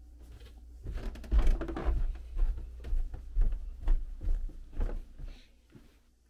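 Footsteps going down carpeted stairs: a run of dull thumps, about two a second, starting about a second in and stopping about five seconds in.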